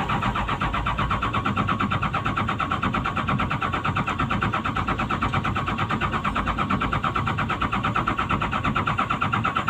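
Komatsu PC200-8 excavator's common-rail diesel engine cranking on the starter in a steady, rapid, even rhythm without catching. This is a crank-no-start fault: the engine does not fire even with the rail pressure sensor unplugged.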